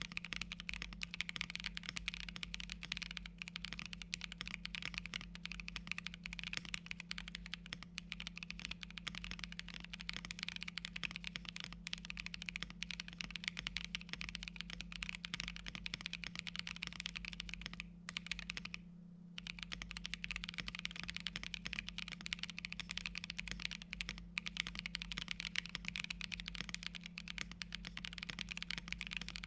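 Continuous typing on a custom 65% mechanical keyboard: a Bakeneko65 with an o-ring gasket mount and FR4 plate, fitted with tactile Neapolitan Ice Cream switches and PBT keycaps. The keystrokes come in a dense, even clatter, with one short pause about nineteen seconds in.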